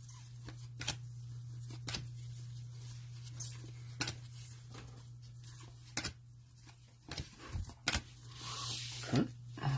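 Trading cards being handled: scattered soft clicks and taps as cards are flipped through, with a brief rustle near the end, over a steady low hum.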